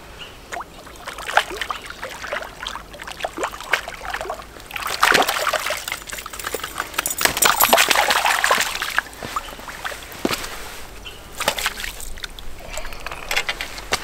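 A hooked brook trout thrashing and splashing in the shallows at the water's edge as it is played in and landed, with irregular slaps and sloshes, busiest a few seconds in.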